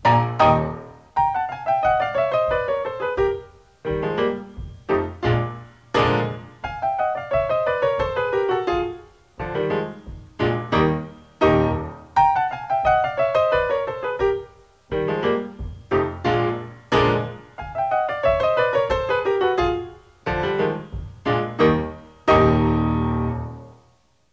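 Solo piano music with a falling phrase that comes back four times, ending on a low chord that dies away just before the end.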